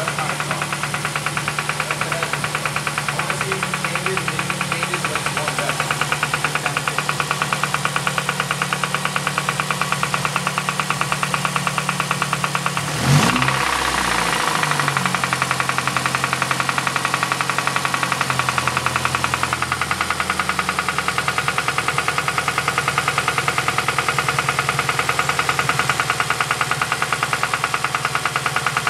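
2007 Ford Focus ZX4 ST's 2.3-litre four-cylinder engine idling with a fast, even knock, which the owner takes for rod knock after running the engine with no oil. About halfway through there is a brief louder surge, after which the engine note settles slightly differently.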